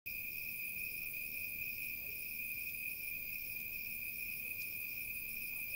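Crickets trilling steadily in a constant high-pitched chorus, with a faint pulsing above the main tone.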